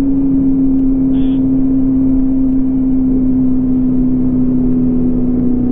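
Motor vehicle engine running at a steady speed, its drone easing slightly lower in pitch. A brief high beep sounds about a second in.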